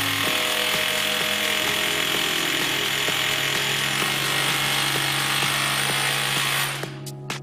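DeWalt DCH033 18V brushless SDS-Plus hammer drill boring into a solid masonry wall, running steadily under load, then dropping away near the end.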